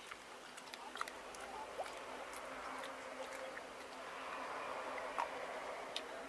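A dog nosing into a steel bowl of rice and starting to eat, with a few soft clicks over a faint, steady hiss-like buzz.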